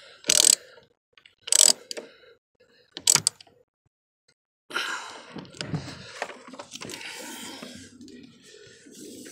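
A socket wrench tightening a truck's air switch back into its fitting: three short clicking, clattering bursts about a second and a half apart, then a stretch of rustling handling noise.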